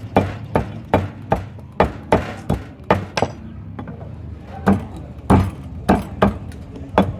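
Large knife chopping roasted meat on a thick wooden chopping block: a run of sharp, quick chops, a short pause about three seconds in, then more chops.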